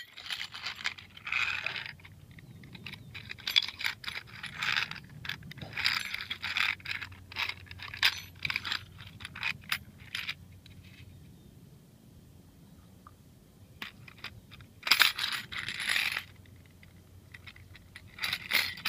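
Close handling noise: a run of clicks, rattles and light metallic clinks as the camera and scale are fumbled with. It goes quieter about two-thirds of the way through, then another burst of rattling follows.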